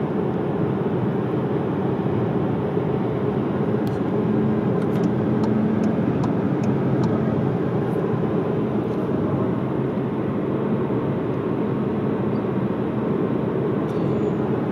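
Steady road and engine noise inside a moving 2020 Škoda Superb, mostly low rumble, with a few faint light ticks in the middle.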